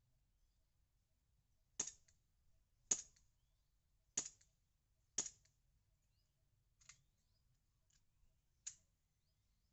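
Gas-powered BB pistol firing plastic BBs: four sharp shots about a second apart, then three fainter clicks.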